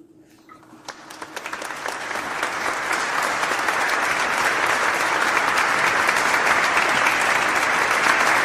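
Crowd applause, many hands clapping, swelling over the first two or three seconds and then holding steady.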